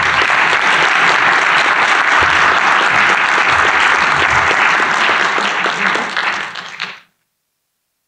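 Audience applauding, a dense patter of many hands clapping that stops abruptly about seven seconds in.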